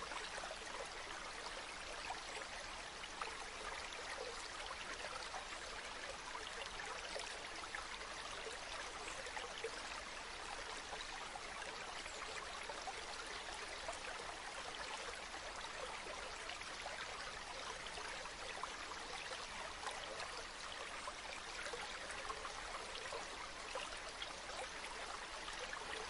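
Small stream of water running and trickling over stones, a steady babble with no change.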